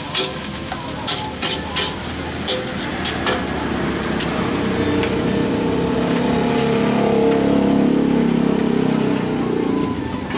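Fried rice sizzling in a steel wok over a gas burner, with a metal spatula clanking against the wok in the first few seconds. A low rumble swells through the second half and fades near the end.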